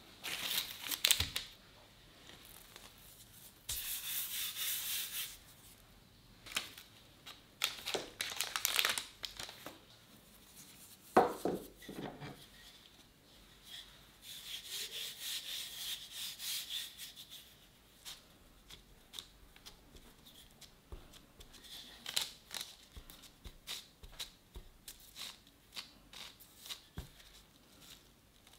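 Baking parchment paper rustling and crinkling in several bursts as it is handled. About eleven seconds in there is a deeper knocking. After that comes a run of short taps and rubs as a wooden rolling pin rolls dough out thin on the parchment.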